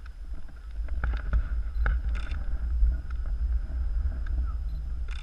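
Wind rumbling on the microphone, with a few light knocks and clicks from handling.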